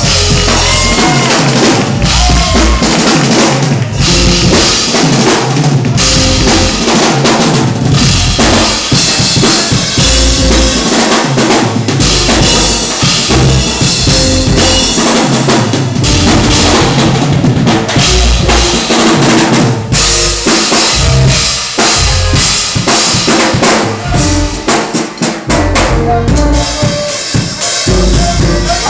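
Loud music driven by a drum kit, with a heavy bass drum and snare beat over pitched instruments.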